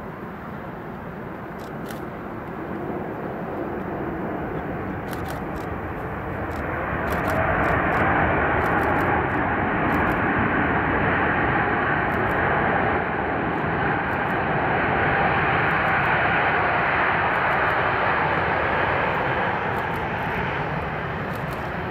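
Boeing 747-8I's four GEnx-2B engines and airframe on the landing rollout, a broad steady roar that grows louder about seven seconds in and stays loud.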